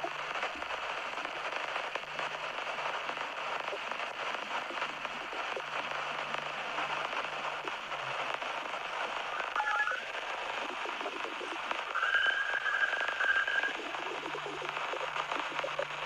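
Space-sound recording presented as the sound of Europa, Jupiter's moon: a dense crackling hiss like radio static over a low on-off hum, with a short whistling tone near the middle and a longer steady one about twelve seconds in. It starts and cuts off abruptly.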